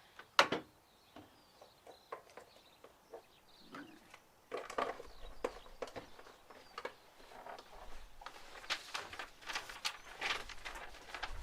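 Scattered clicks, knocks and rustles of things being handled, with one sharp click about half a second in and busier handling from about four and a half seconds on.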